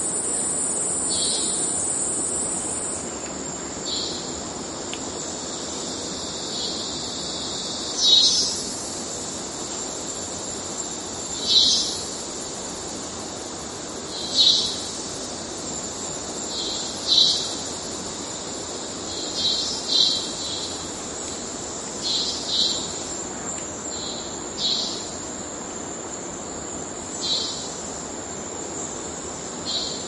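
Cicada song with a robot-like sound: a steady high-pitched drone, broken every two to three seconds by short pulsed calls that stand out above it. The drone eases off a little about three seconds in.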